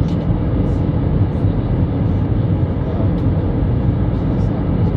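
Steady drone of an Airbus A320 airliner heard from inside the passenger cabin on descent: engine and airflow noise, even throughout with a faint steady hum.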